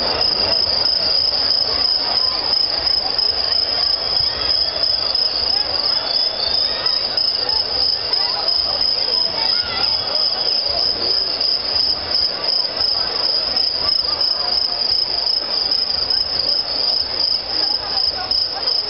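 An insect trilling continuously on one high pitch, loud and unbroken, over the low murmur of a concert crowd.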